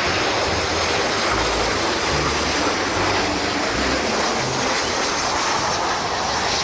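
Water spraying steadily onto a muddy toy airplane to rinse it, a continuous hiss that starts and stops abruptly.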